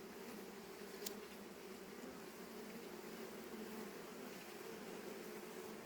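Honeybees buzzing around an open hive, a steady, wavering hum of many bees in flight. A single sharp click sounds about a second in.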